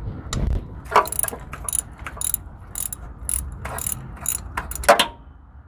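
Socket ratchet clicking in a quick series of short ratchet strokes as it backs out the 16 mm through-bolt of a serpentine belt tensioner.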